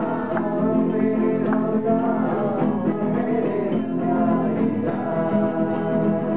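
Acoustic guitar strummed as accompaniment to a group singing a devotional song (bhajan).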